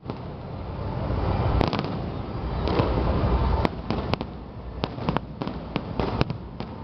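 Fireworks salute going off: a continuous low booming rumble, with sharp single bangs cracking out over it, several in the second half.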